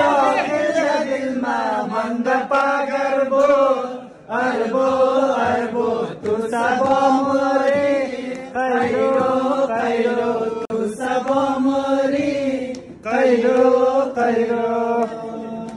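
A group of party guests singing a folk song together in unison, chant-like, in repeated phrases of about two seconds each.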